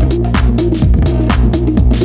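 Electronic dance music with a steady, fast beat and heavy bass.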